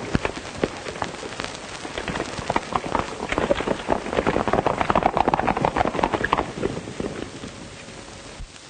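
Horses galloping, a dense clatter of hoofbeats that swells past about halfway through and then fades away.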